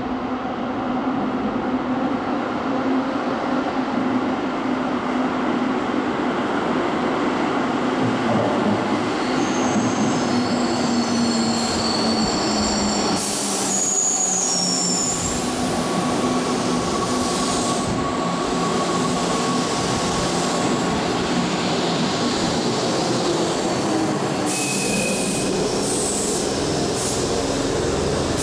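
Keihan 2600-series electric train pulling into an underground station platform and slowing. Its steady running hum drops a little in pitch partway through, with thin high squeals from the wheels and brakes in the middle and again briefly near the end.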